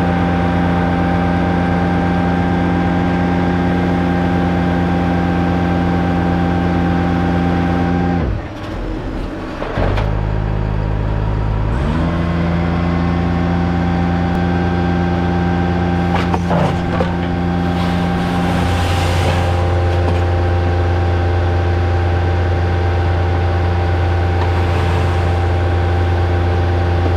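DAF combination gully tanker's engine and jetting pump running steadily at working revs while jetting a blocked gully. About eight seconds in the running dips and changes pitch for a few seconds before coming back up, and a few sharp clicks sound partway through.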